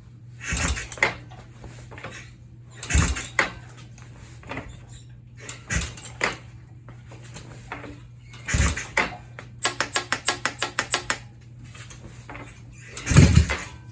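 Yamaha XS650 parallel-twin motorcycle engine being kicked over again and again, about five heavy strokes a few seconds apart, without firing, with a quick run of ticks near the middle as the engine spins over. The engine cranks but does not start, despite the choke on and fuel primed.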